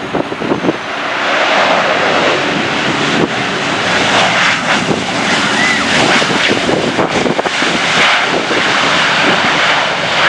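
Airliner's engines running loud as it flies past close on its landing, with strong wind gusting on the microphone.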